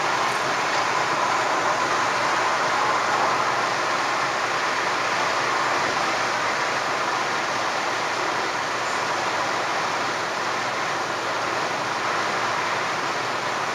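Steady road noise inside a moving car: an even rush of tyres and wind heard from the cabin, with no distinct engine note or other events.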